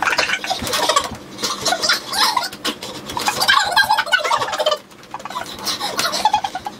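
A man's repeated pained cries and yells as another man's fists thump rapidly on his shoulder, with a short lull a little before 5 seconds in.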